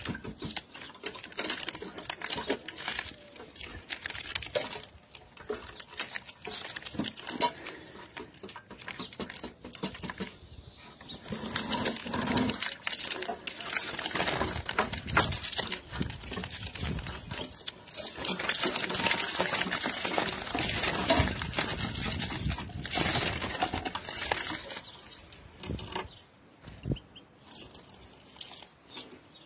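Handling noise from a wooden birdcage with wire bars as a hand reaches in among European goldfinches. There are irregular clicks, knocks and rustling, with the caged birds scuffling and fluttering. It gets louder and busier from about twelve seconds in.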